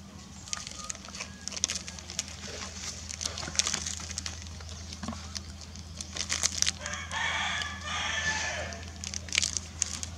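A rooster crows once, about seven seconds in, the crow lasting nearly two seconds. Scattered sharp crackles and clicks and a steady low hum run underneath.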